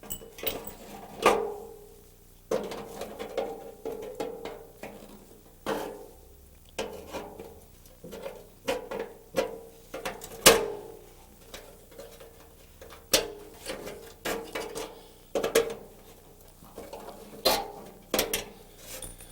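Irregular metallic clinks and knocks with short ringing, and quieter scraping between them, as the cut-out length of broken reinforcing wire is worked out of the car fender's rolled edge.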